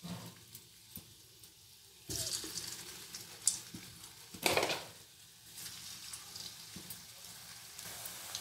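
Bottle gourd (lauki) kofta balls sizzling as they deep-fry in hot oil in a steel kadhai. The sizzle starts about two seconds in, flares up sharply twice as more balls go into the oil, then settles into a steady sizzle.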